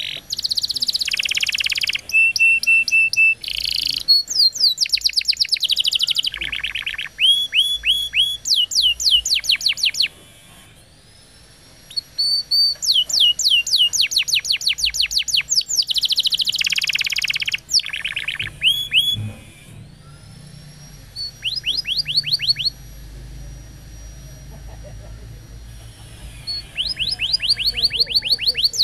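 Canary singing a long song of fast trills, rapid runs of repeated down-slurred notes, with buzzy rolls and a short held whistle. It breaks off about ten seconds in and goes quieter for a stretch past the middle before the trills pick up again near the end.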